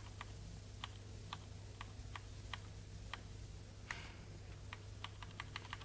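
Scattered, faint clicks of an HP laptop being worked by hand at its keys, coming irregularly over a low steady hum.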